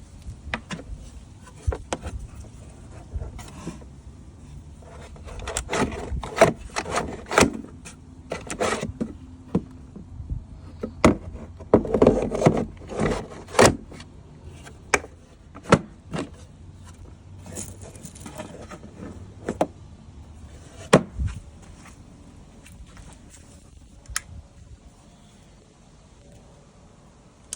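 Ryobi 40V battery push mower making only irregular clicks and knocks as starting is tried, with no motor spin-up: it fails to start and just clicks.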